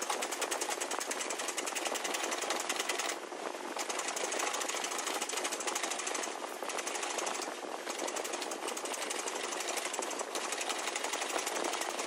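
Roughing gouge cutting a wooden spindle blank on a foot-powered spring pole lathe: a rapid, dry chattering of the tool on the spinning wood, in runs broken by short pauses.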